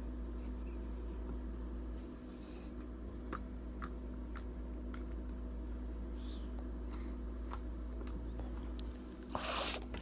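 Hands squeezing and poking soft pink slime, making scattered small clicks and pops, over a steady low hum. A louder rustling burst comes near the end.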